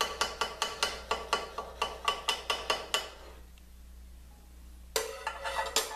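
Light metallic taps in quick succession, about five a second, with a short ring after each: a steel T-handle hex key tapping a snugged stop along an aluminium table saw fence to nudge it into position. The taps stop about three seconds in, and a second short run comes near the end.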